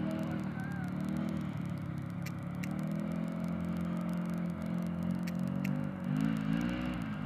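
A motor vehicle's engine running, its pitch rising and falling, with a few faint clicks.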